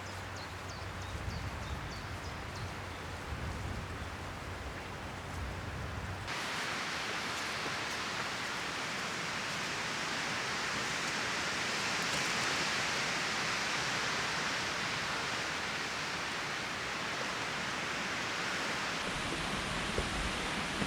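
Wind and rain noise across a few cut-together clips: first a low wind rumble on the microphone with a few faint high chirps, then about six seconds in an abrupt switch to a steady, brighter hiss, which changes again near the end.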